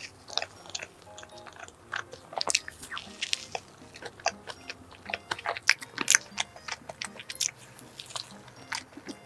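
Bites and wet chewing of a strawberry cream dessert, a quick run of short, sharp mouth sounds, over soft background music.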